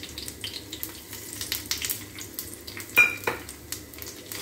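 Whole spices (fennel, cumin, mustard seeds, fenugreek, curry leaves) crackling and sizzling in hot oil in a small kadhai, the tempering for a tadka. A single sharp ringing clink about three seconds in.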